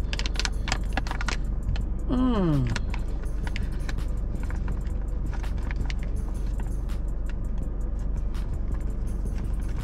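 Crinkling and clicking as food and its packaging are handled in a car, over a steady low hum from the car. About two seconds in comes one short groan that falls in pitch.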